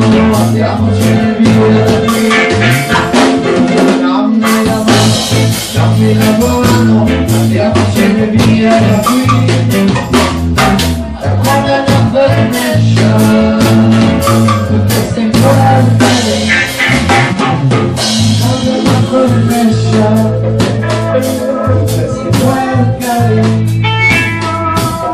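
Live dub band playing: a steady deep bass line and drum kit, with guitar and a woman's voice singing.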